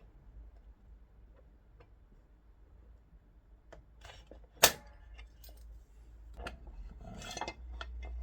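Small metal parts of a chop saw's handle mechanism clicking and clinking as a C-clip is worked out with a tool, with one sharp click a little past halfway and light metallic rattling near the end.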